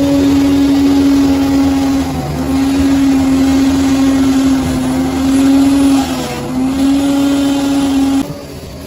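Bulldozer running, a loud steady engine whine that dips briefly twice. The sound drops off suddenly near the end.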